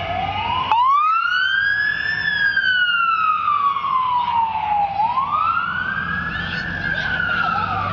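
Fire truck siren on a slow wail, its pitch sweeping up and then sliding down in long cycles, twice, with a sharp click as the second rise begins. A low engine rumble runs underneath.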